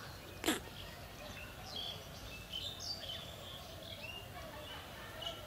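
Small birds chirping in short, scattered calls over a steady outdoor hush, with one sharp tap about half a second in.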